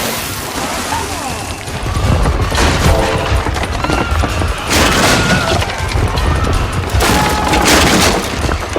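Explosion booms and crashing over music, coming in three waves a couple of seconds apart, with a low rumble beneath.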